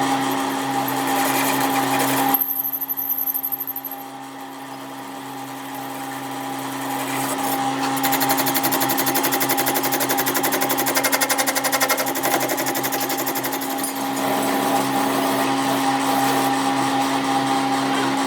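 A motor-driven workshop machine running steadily with a hum and a fast rattle, its sound changing about two seconds in and building up again later.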